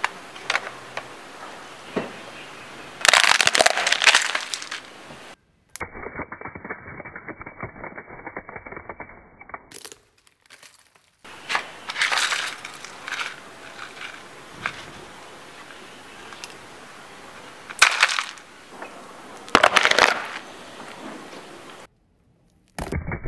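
Hollow plastic toy goose cracking and splintering as a car tyre crushes it, in several short bursts of loud crackling, with smaller ticks and scrapes of plastic pieces on concrete between them.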